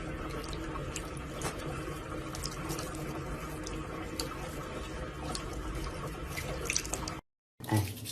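Steady running water, like a tap running into a sink, with small scattered drips or ticks; it cuts off abruptly about seven seconds in.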